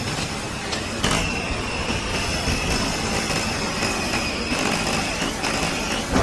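A small machine's motor running with a steady noisy rumble, and a high whine that sets in about a second in and holds until near the end.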